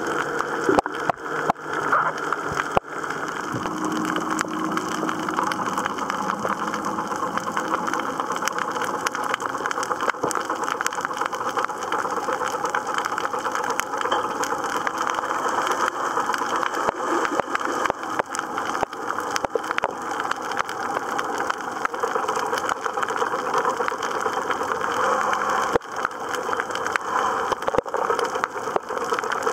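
Continuous dense crackle of fine underwater clicks, with a few louder knocks in the first few seconds.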